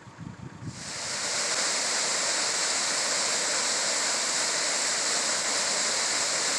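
Steady rushing of a waterfall or creek, a loud even hiss that starts abruptly under a second in, after a brief low rumble fades out.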